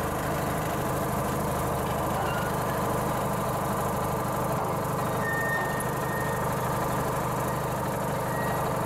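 An engine idling steadily, an even low drone with no change in speed.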